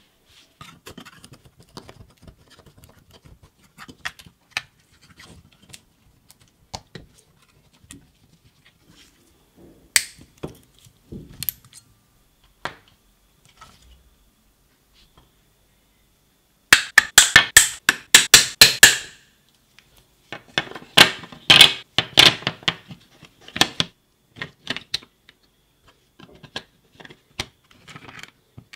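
Handling noise from dismantling a Black & Decker 12V NiCd battery pack: scattered clicks, taps and scrapes of the cells, metal tabs and plastic case on a workbench. There are two loud spells of rapid clicking and rattling, about halfway through and again a few seconds later.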